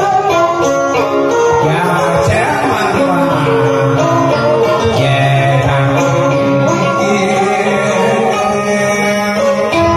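Vietnamese tân cổ karaoke backing music led by a plucked string instrument, with a man singing into a microphone.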